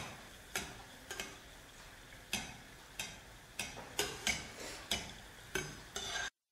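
Perforated steel skimmer clinking and scraping against a frying pan, about ten irregular taps, over the faint sizzle of a ghari frying in ghee. The sound cuts off suddenly near the end.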